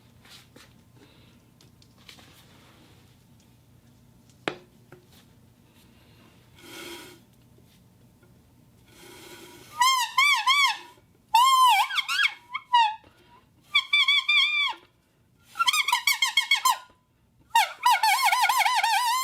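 Faint handling noise with a single click, then, about ten seconds in, a homemade glass-bottle and metal-plate whistle is blown in a series of short, loud blasts. Each blast is a high tone that warbles rapidly up and down in pitch.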